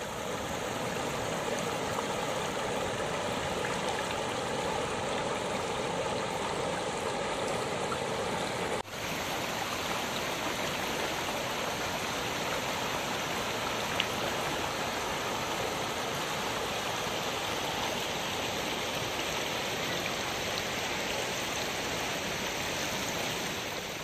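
Shallow river rushing and rippling over rocks in small rapids, a steady wash of water with a brief break about nine seconds in.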